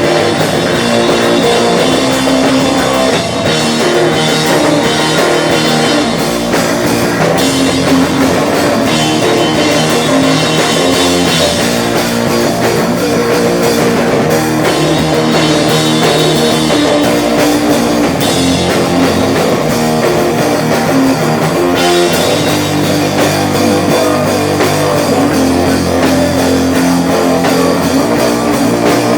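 Live rock band playing electric guitar and drum kit, loud and without a break.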